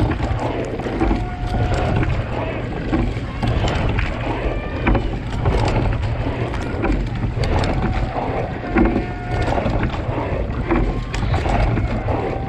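Oar blades of a single racing scull splashing and churning the water close to the microphone, with irregular splashes over a steady wash of water noise. A constant low rumble of wind on the microphone runs underneath.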